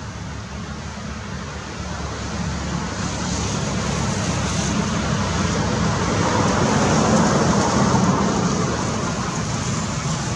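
A motor vehicle going by on a road, a low rumble and rushing noise that grows louder to its peak about seven seconds in, then eases off.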